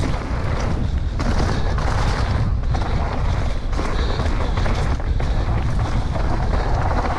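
Downhill mountain bike at speed: wind buffeting the rider's camera microphone as a loud, steady rumble, with tyres running over loose dirt and the bike clattering on bumps in frequent short knocks.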